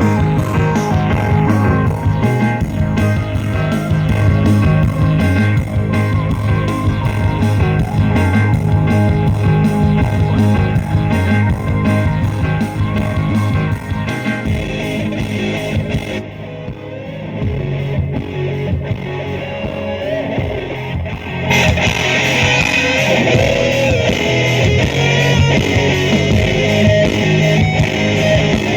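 Rock music with electric guitar and a heavy bass line, played loud through a Sony SS-XB88V super woofer speaker. The treble drops away for a few seconds past the middle, then the full band comes back in.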